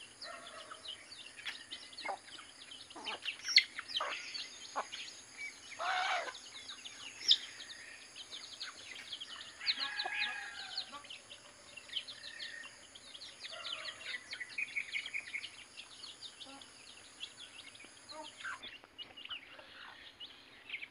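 Native chickens clucking among many short, high chirps and peeps scattered throughout.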